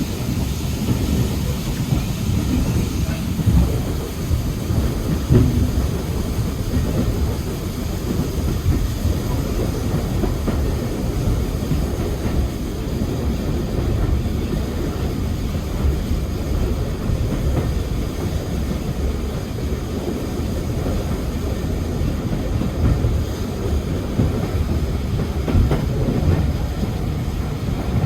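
Railway coach running along the line: a steady low rumble from the wheels on the track, with occasional clicks and knocks over rail joints.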